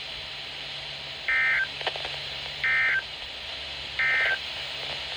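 Three short bursts of EAS/SAME digital data tones, a shrill two-tone warble about 1.3 seconds apart: the End of Message code that closes a NOAA Weather Radio warning. A steady fan hiss runs underneath.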